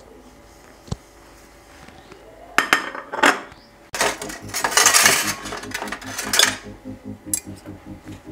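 Ceramic plate and cutlery clinking and clattering: a single click, then a few sharp clatters, then a couple of seconds of louder rattling and scraping.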